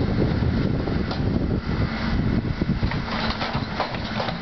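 JCB 3CX backhoe loader's diesel engine running steadily while the backhoe arm works the bucket.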